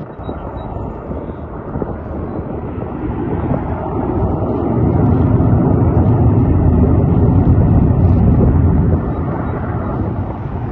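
Boeing 737-800's CFM56-7B jet engines at take-off power: a low jet roar that swells over the first five seconds, holds, and eases off near the end.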